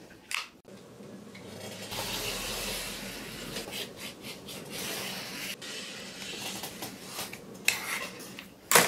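Rotary cutter rolling through fabric on a cutting mat: a long rasping hiss lasting several seconds, with a few sharp clicks at the start and near the end.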